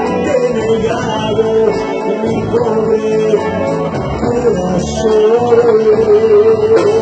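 Live grupera band playing a song, a man singing over the band.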